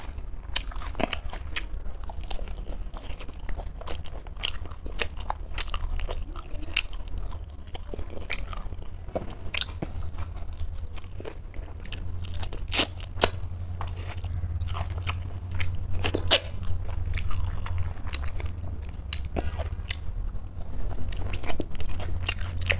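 A person eating rice with mutton head curry close to the microphone: chewing, with frequent short, sharp crunchy clicks.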